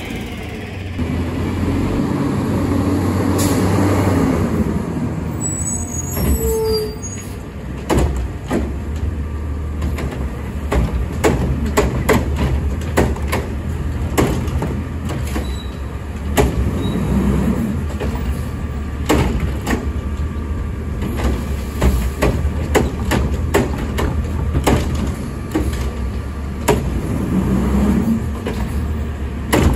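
A garbage truck's engine running steadily, swelling louder in the first few seconds, with many short knocks and clanks through the rest.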